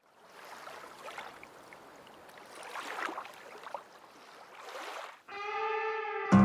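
Seawater washing and lapping, swelling and fading in slow waves. About five seconds in this gives way to a single held musical note, and strummed guitar music starts at the very end.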